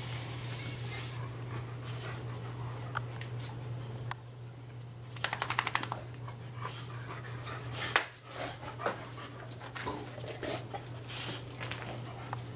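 Several dogs scuffling and panting, with a short rapid rasping growl about five seconds in as a German Shepherd reprimands an over-excited Pit Bull, and scattered sharp yips and snaps later on.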